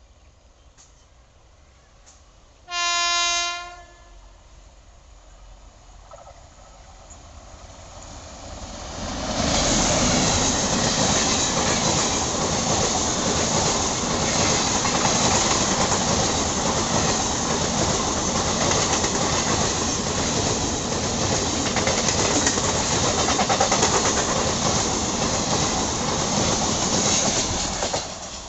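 A WAP7 electric locomotive sounds one horn blast about a second long, about three seconds in. Then the express passes close by at high speed: the noise of the ICF coaches' wheels on the rails builds from about six seconds, stays loud and steady, and drops away sharply near the end as the last coach goes by.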